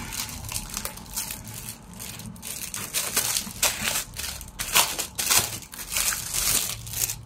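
Plastic packaging crinkling and rustling in quick, irregular crackles as a parcel is unwrapped by hand.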